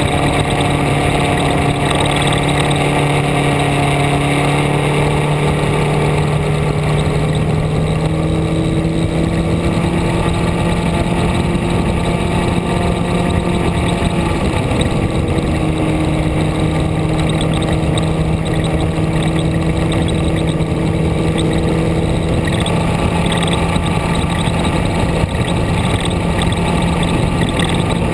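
Vehicle engine running steadily under way, with road and wind noise. The engine note holds fairly even, with a short break and slight change in pitch about halfway through.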